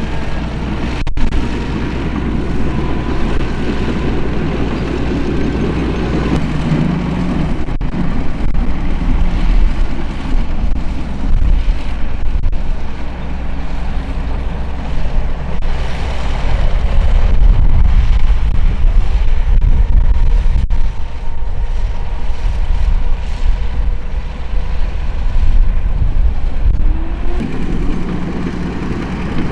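Heavy diesel construction machinery running with a deep engine rumble that rises and eases under load, loudest in the middle stretch.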